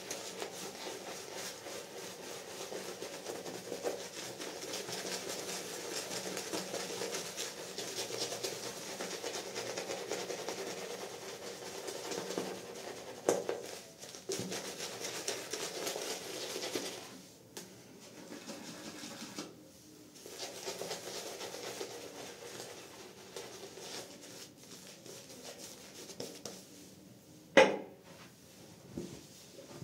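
Shaving brush working lather over a stubbled face: a steady scratchy swishing that grows sparser in the second half, with one sharp knock near the end.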